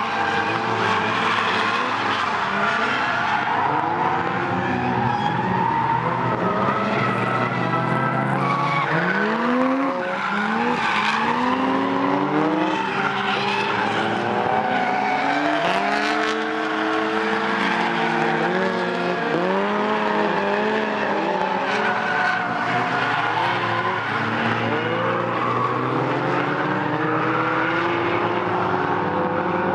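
Drift cars sliding on a circuit: engines revving up and down again and again, with tyres squealing.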